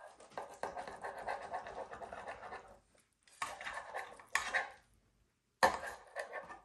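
A table knife scrapes against the bottom of a glass baking dish as it cuts through haddock fillets. There is a long scrape, then two shorter ones, then a sharp clink about five and a half seconds in.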